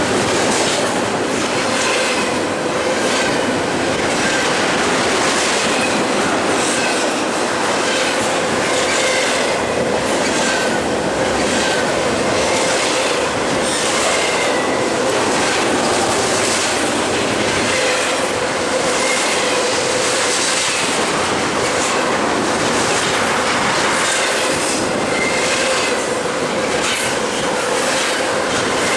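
BNSF double-stack intermodal freight cars rolling steadily past, their wheels clacking over rail joints every second or two, with a thin steady squeal from the wheels on the rails.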